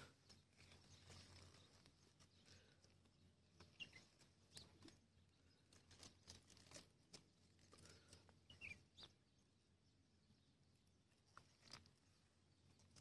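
Near silence: faint outdoor ambience with scattered soft clicks and a few faint, short bird chirps.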